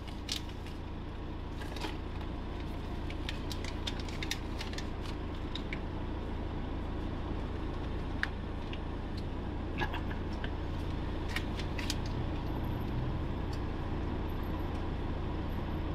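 Motorhome engine idling as a steady low hum, heard from inside the cab, with scattered small clicks and clinks as coins are handled and fed into a motorway toll machine.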